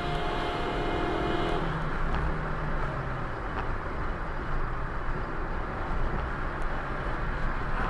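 Car driving at about 50 mph, its road and engine noise heard from inside the cabin as a steady rushing. A steady tone with overtones sounds over it and cuts off about a second and a half in.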